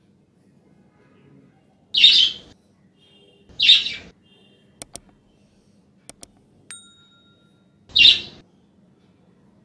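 Subscribe-button animation sound effects: three short whooshes, two pairs of mouse clicks in the middle, and a single bell ding just after the second pair of clicks.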